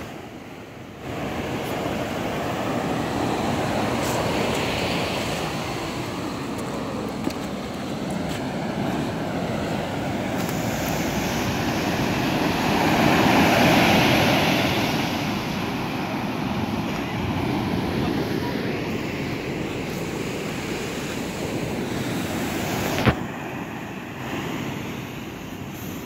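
Sea surf breaking and washing up a sandy beach, with gusty wind buffeting the microphone. The surf swells loudest about halfway through, and a single sharp knock comes near the end.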